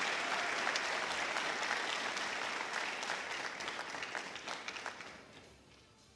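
Audience applauding, a dense patter of many hands clapping that dies away over the last two seconds or so.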